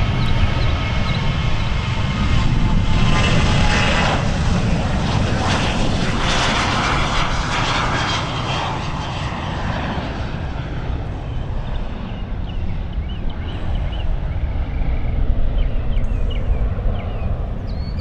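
Jet airliner's engines passing, a heavy rumble with a high whine. It swells over the first few seconds, then slowly fades.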